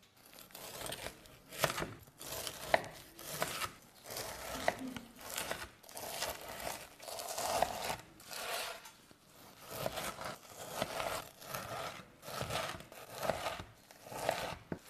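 Chef's knife slicing and dicing raw pork heart on a wooden cutting board: repeated strokes through the meat, several with a sharp knock of the blade on the board.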